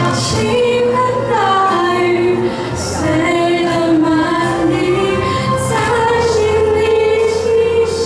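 Girls singing into handheld microphones, long held sung notes that glide between pitches, over an instrumental accompaniment with steady low notes.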